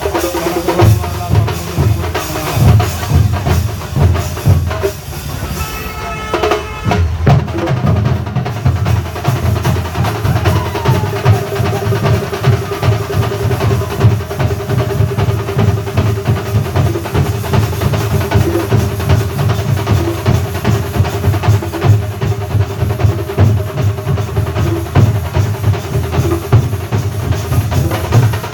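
Thambolam drum band playing: fast, dense bass drum strokes with lighter percussion, and a sustained higher melody note over the drums from about ten seconds in.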